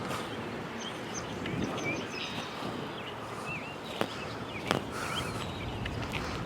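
Small birds chirping and giving short whistled notes, with a few footsteps on a path, two of them sharper about four seconds in.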